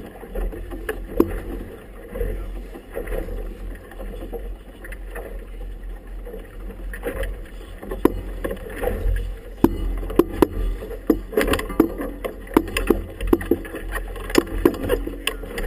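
Wind rumble on the camera with choppy water slapping against an inflatable boat's tube in sharp, irregular smacks that grow more frequent in the second half.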